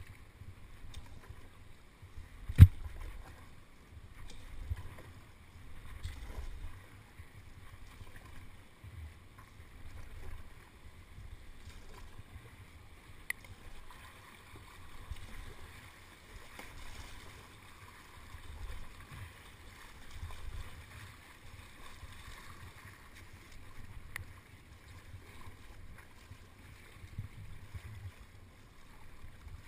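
Moving river water rushing and lapping against a canoe hull as the canoe runs an easy riffle, with low rumbling swells recurring about every two seconds. A single sharp knock sounds about two and a half seconds in, the loudest sound.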